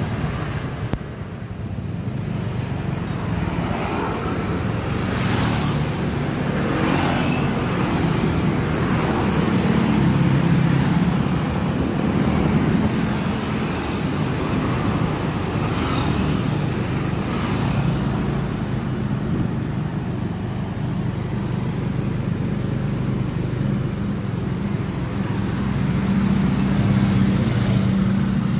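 Motorcycle engine running steadily while riding, with wind and road noise on the microphone. A few passing vehicles swell and fade.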